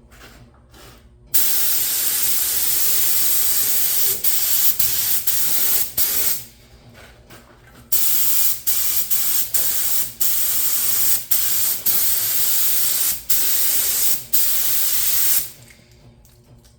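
HVLP paint spray gun hissing as the trigger is pulled: one long spray of about five seconds, a pause, then about seven seconds more of spraying broken by many brief trigger releases.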